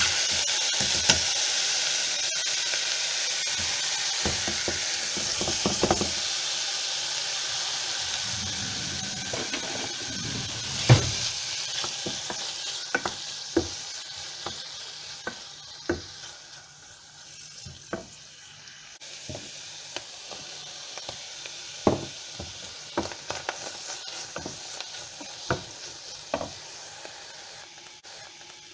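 Food sizzling in a hot pan, loud at first and slowly dying down, with the clicks and scrapes of a utensil stirring and knocking against the pan.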